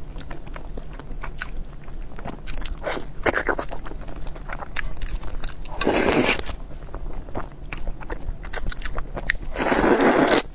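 Close-miked eating: chewing with wet mouth clicks, then two long, loud slurps of noodles sucked up out of chili broth, about six seconds in and again near the end.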